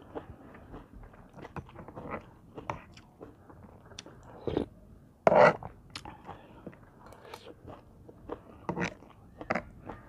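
Close-up, mouth-near chewing and crunching of a spicy seafood salad with sweet corn and squid: wet bites and smacks in an uneven run. About halfway through comes one louder, brief clink or scrape as the metal spoon scoops from the tray.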